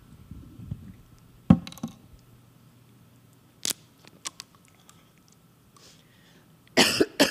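Mouth noises close to a microphone during a pause: a few soft clicks and smacks, then two short harsh coughs near the end from a woman whose voice is strained by illness.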